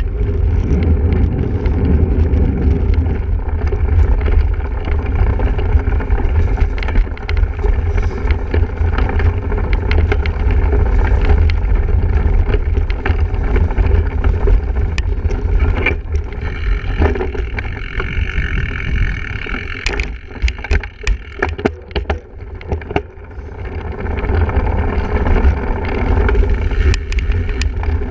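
Steady rumble of wind and riding noise on a camera carried on a single-speed cyclocross bike being raced over rough ground, with a run of sharp clacks and knocks about twenty seconds in.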